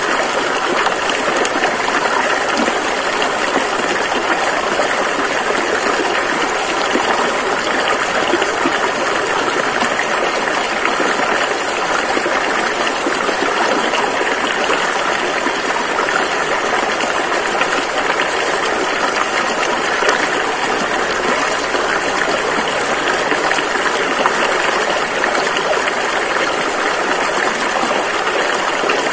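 A fast-flowing river rushing over rocks: a steady, loud wash of water noise that doesn't change.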